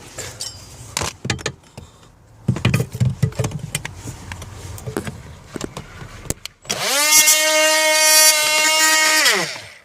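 Clicks and knocks of plastic parts being handled. About seven seconds in, a small electric rotary cutting tool starts: it spins up quickly to a steady high whine, runs for about two and a half seconds, and winds down.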